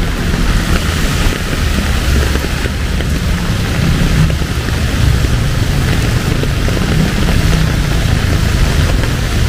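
Heavy rain falling steadily, with a low rumble of road traffic engines underneath.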